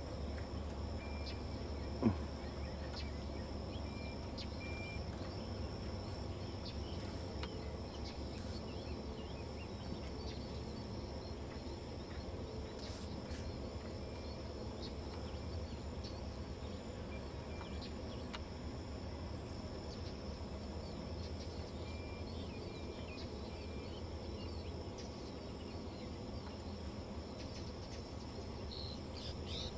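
Steady outdoor ambience: a faint insect drone with short, high bird chirps here and there over a low steady hum. A single sharp knock about two seconds in.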